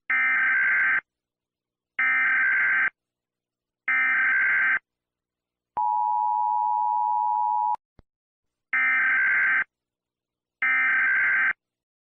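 Electronic emergency-alert tones: one-second alarm pulses made of several high pitches, repeating about every two seconds, three times. Then a steady two-second tone near 1 kHz as the countdown reaches zero, a short click, and two more alarm pulses.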